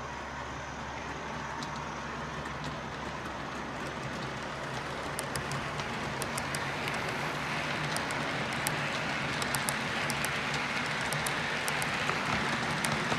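Model railway train, a Class 60 diesel locomotive hauling tank wagons, running along the layout toward the camera. It makes a steady whirring of motor and wheels that slowly grows louder. From about five seconds in come sharp little clicks of wheels crossing rail joints.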